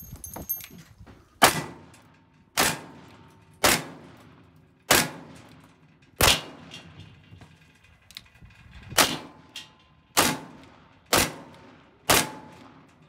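Ruger Old Army black-powder percussion revolvers firing a string of single shots, mostly about a second apart, with a pause of nearly three seconds partway through; each shot is followed by a short ring of steel targets and echo.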